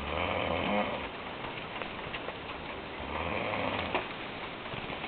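A man snoring in his sleep: two snores, each about a second long, about three seconds apart.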